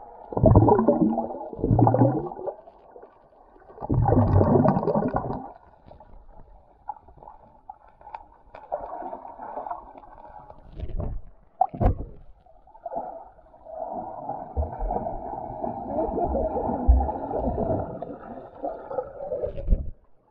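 River water gurgling and sloshing, heavily muffled, with almost no high sounds. It comes in uneven surges, with a few sharp knocks about eleven seconds in and a long steady stretch over the last seven seconds.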